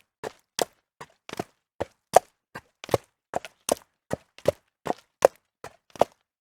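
A horse walking on stone, its hooves clopping in a steady, even rhythm of about two to three strikes a second.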